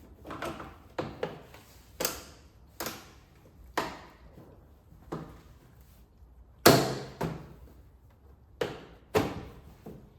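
Irregular hand-work knocks and clunks as the steering wheel bolt and parts are fitted onto a ride-on mower's steering column: about a dozen sharp hits, each with a short ring, the loudest about two-thirds of the way through.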